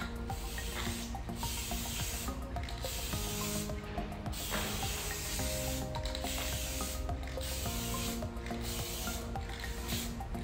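Aerosol spray-paint can hissing in repeated short passes, about one a second with brief breaks between them, as black paint goes onto aluminium angle strips. Background music with held notes plays underneath.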